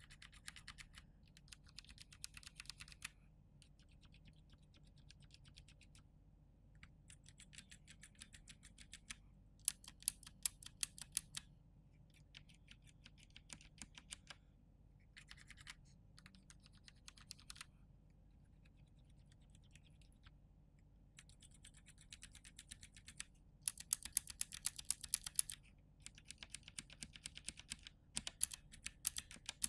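Bare Cherry MX mechanical keyboard switches on a hot-swap keyboard, pressed rapidly with a finger without keycaps. The clicks come in separate quick runs with short pauses between, some runs much fainter than others, and the loudest run comes about three-quarters of the way through.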